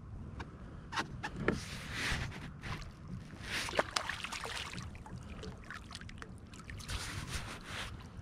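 A hooked striped bass splashing and thrashing at the water's surface beside a kayak, among scattered sharp clicks and knocks.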